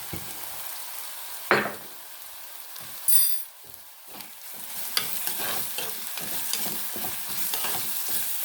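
Onions, ginger, garlic and curry leaves sizzling in hot coconut oil in a chatti while being stirred with a spoon: a loud scrape about one and a half seconds in, a short ringing clink about three seconds in, then quick repeated stirring strokes over the steady sizzle. The onions are being sautéed down with salt added to soften them.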